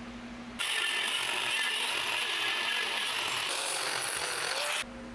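MIG welder laying a weld bead on steel, a steady hiss that starts abruptly about half a second in and cuts off just as suddenly about four seconds later.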